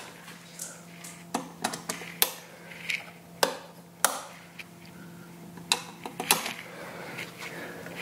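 Wall rocker light switches clicking as they are flipped on and off one after another, a string of a dozen or so short sharp clicks, over a faint steady hum.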